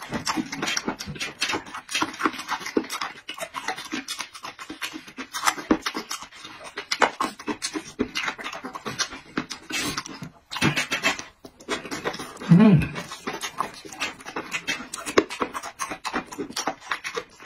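Close-up eating sounds of bone-in roast sheep-head meat dipped in chili sauce: steady wet chewing, lip-smacking and gnawing, with quick clicks throughout and heavy breathing. About two-thirds of the way through comes a short low hum from the eater, the loudest moment.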